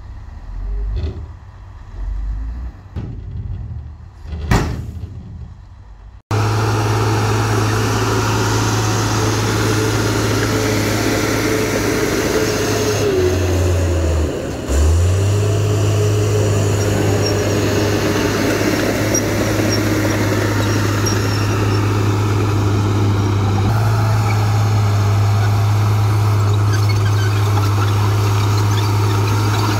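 Komatsu D53A crawler bulldozer's diesel engine running steadily under load as it pushes soil, a loud low drone that starts abruptly about six seconds in. Before it, scattered knocks and clatter.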